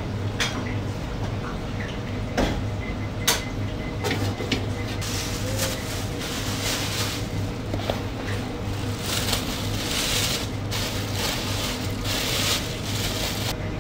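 Gloved hands scattering grated cheese and shredded ham onto a pizza base in a metal pan: soft rustling and patting that stops just before the end. A few sharp knocks come in the first few seconds, over a steady low hum.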